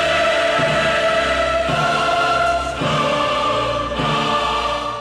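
Choral music: a choir singing long sustained chords, with orchestral backing, the chords changing about once a second.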